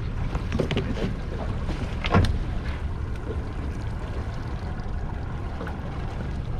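Outboard motor running at low speed with wind buffeting the microphone, and one brief loud bump about two seconds in.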